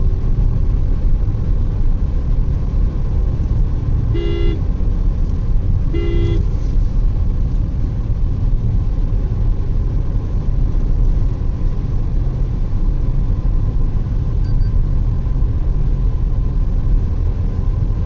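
Steady low road and engine rumble heard inside a car driving along an expressway, with a vehicle horn tooting twice, briefly, about four and six seconds in.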